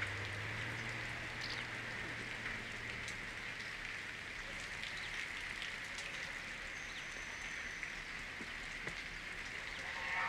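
Steady, quiet outdoor ambience: an even hiss with scattered faint ticks, and a low hum that fades out in the first few seconds.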